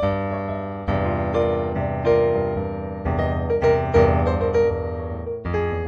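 Improvised solo piano music: chords and single notes struck one after another, each fading before the next.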